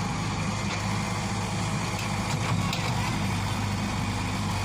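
A motor running steadily with a low, even hum and a few faint clicks over it.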